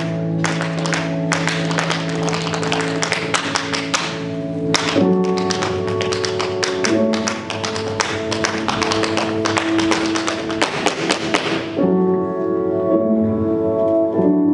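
Tap shoes striking the floor in a fast, dense stream of taps over music with held chords. The taps stop about 12 seconds in, leaving the music alone.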